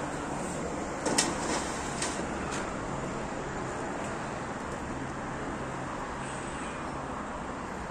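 Thin sheet metal clicking and clattering as a strip is handled and slid into the clamp of a manual sheet-metal folding brake: a few sharp metallic clicks in the first two and a half seconds, the loudest about a second in, over steady background noise with a faint low hum.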